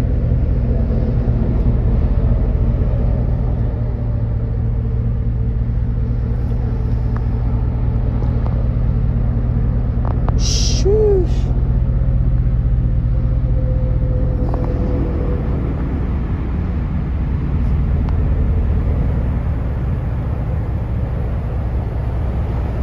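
Chevrolet Silverado pickup's engine idling with a steady low rumble.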